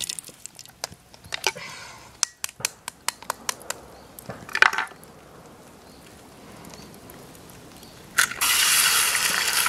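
Meat frying in fat in a soldier's mess-tin pan on campfire embers: scattered sharp pops and crackles, then a quieter stretch, and near the end a sudden loud steady hiss.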